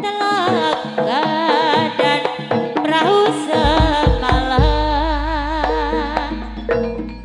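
Jaranan ensemble music: a high melody line wavers with heavy vibrato over the ensemble's percussion. A deep low note comes in about halfway through and rings on, fading toward the end.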